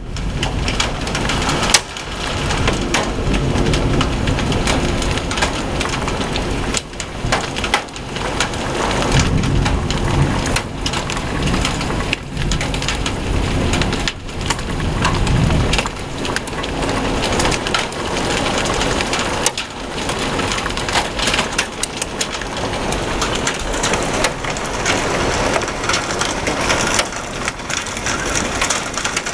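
Heavy thunderstorm downpour: rain beating down hard and steadily, with many sharp pelting hits on surfaces. Low rumbling swells up a few times in the middle.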